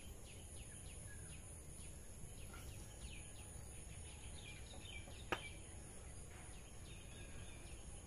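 Outdoor ambience of small birds chirping: many short, quick, falling chirps repeat throughout over a steady high-pitched whine and a low rumble. A single sharp click sounds about five seconds in.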